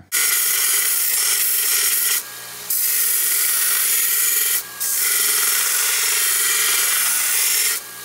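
Small bench belt sander grinding a steel knife-handle piece: a loud, steady hiss of abrasive on steel. The grinding drops out briefly about two seconds in, just before five seconds and again near the end, leaving only the sander's motor humming.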